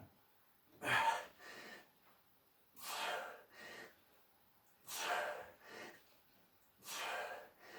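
A man breathing hard with effort during ab crunch reps: four rhythmic breaths about two seconds apart, each a forceful exhale followed by a shorter, softer intake, as the abs tire near the end of a hard set.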